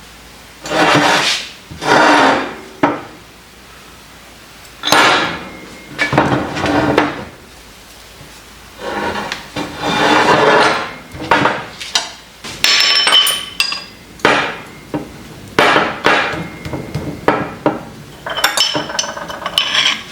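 Hand work on a steel vise part: about a dozen rubbing or scraping strokes of metal, each lasting under a second to a second and a half, with a few sharp metallic clinks in the second half.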